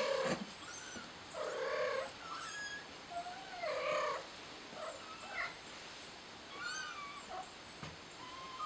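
A kitten meowing several times in short cries, the longest ones around two and four seconds in.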